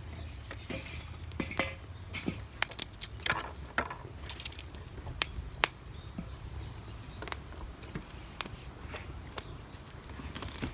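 Small wood fire crackling, with irregular sharp snaps and pops, some in quick clusters, over a low steady rumble.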